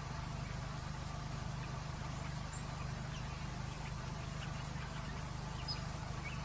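A steady low hum, with faint, short high chirps of small birds scattered through it and a slightly louder chirp near the end.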